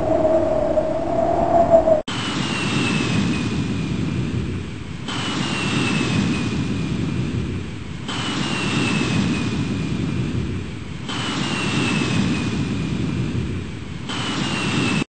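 Jet-engine sound effect played as a loop: a rushing engine noise with a high whine falling in pitch, repeating about every three seconds. A wavering droning tone comes before it, and the loop cuts off abruptly near the end.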